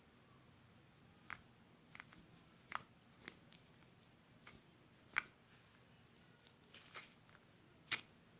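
Slime being squished and poked by hand, giving scattered soft clicks and pops at irregular intervals, the loudest about five seconds in.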